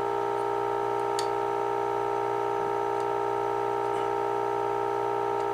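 Steady mid-pitched test tone with a low hum beneath it, coming from the speaker of a 1948 Emerson AA5 radio. It is a signal generator's tone being received while the radio's tuned stages are aligned.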